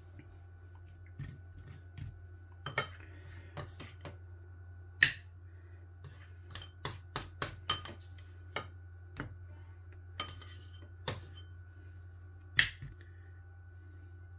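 A metal spoon clinking and scraping against a bowl and a plate as mushy peas are spooned out: a run of sharp irregular clinks and taps, the loudest about five seconds in and near the end. A low steady hum runs underneath.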